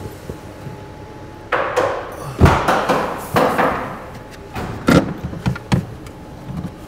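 Plastic knocks, scraping and rattling as a VW Golf IV tail light is tugged and worked loose from the car's rear panel. There is a noisy scraping stretch with a hard knock in the middle, then a few sharp clicks and knocks near the end.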